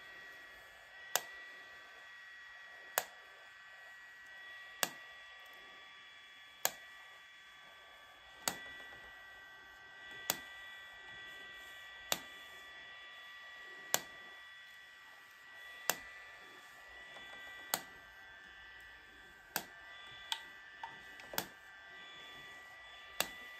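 Handheld IPL hair-removal device flashing, a sharp click about every two seconds, over the steady high whine of its cooling fan.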